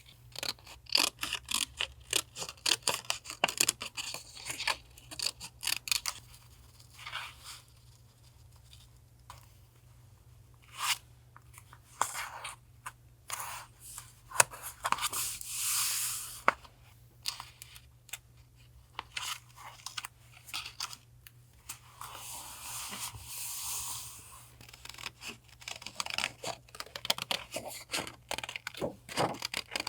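Paper being handled and torn for a journal collage: quick crisp rustles and clicks, with two longer tearing stretches about 15 and 22 seconds in. A low steady refrigerator hum runs underneath.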